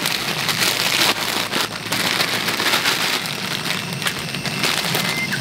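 Pot of water boiling on a gas camp stove, bubbling and crackling steadily as bean sprouts are tipped in from their bag.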